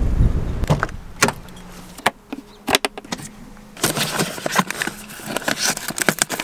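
Low wind rumble on the microphone at first, then a few separate clicks and knocks. From about four seconds in, dense crinkling and rustling of plastic bags and packaging as a hand rummages through a soft cooler.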